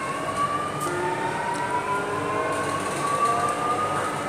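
Chennai Metro train's electric traction motors whining inside the carriage as the train accelerates away from a station, several tones rising slowly and steadily in pitch together over the running noise.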